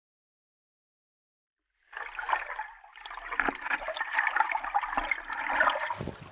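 Silence, then from about two seconds in, river water sloshing and splashing against a camera held half-submerged at the surface.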